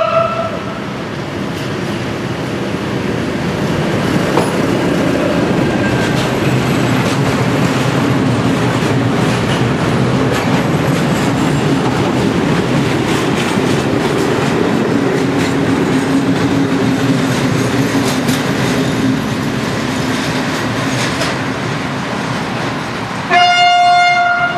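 PKP SM42 diesel-electric shunting locomotive and its freight wagons passing close by: a steady loud rumble of the engine with the wagons' wheels clicking over the rail joints. A locomotive horn blast is just ending at the start, and another loud single-tone horn blast sounds near the end: the 'Baczność' (attention) warning signal.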